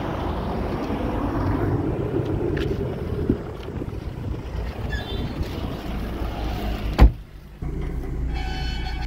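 Mahindra XUV700 door shut with a loud thud about seven seconds in, cutting off the outside noise; moments later the engine starts and runs with a steady low rumble while a short series of chime tones sounds.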